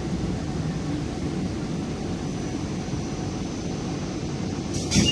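Interior rumble of a Hong Kong Light Rail Phase 3 car as it rolls slowly into a stop alongside the platform. A sharp click comes just before the end.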